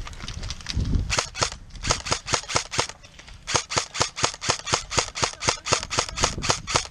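Airsoft gun firing rapid shots, about six sharp cracks a second, in strings with short pauses between them.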